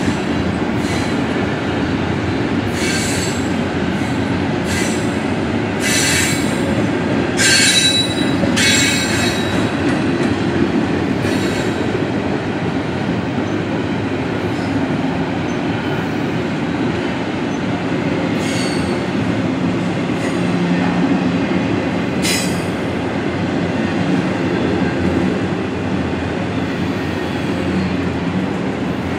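Double-stack container well cars of a freight train rolling past, with a steady low rumble of steel wheels on rail. It is broken by a handful of short, high-pitched wheel squeals, the loudest about eight seconds in.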